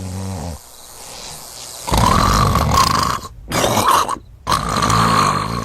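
Homer Simpson's loud, rasping cartoon snoring, starting about two seconds in: a long snore, a short one, then another long one near the end.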